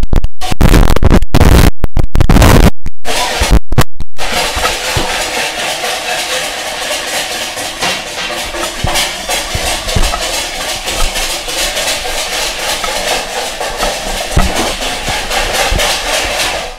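Background music over a wire whisk beating milk and sugar in a plastic bowl, its wires ticking against the side. For the first few seconds the sound is distorted and cut by brief dropouts.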